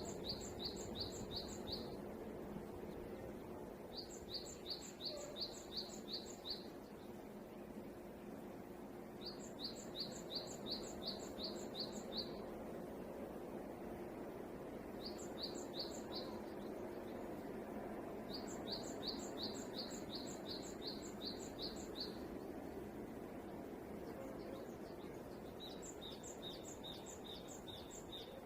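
A songbird singing the same phrase six times, each a quick run of evenly spaced high notes lasting two to three seconds. The last phrase, near the end, is on a lower, flatter note. Steady low background noise runs underneath.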